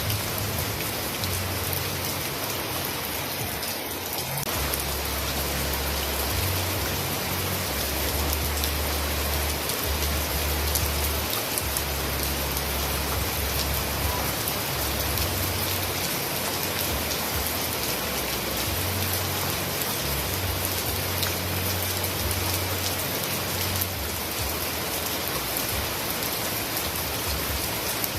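Heavy, steady rain pouring down, a dense hiss of drops on surfaces. A low rumble underneath swells and fades several times.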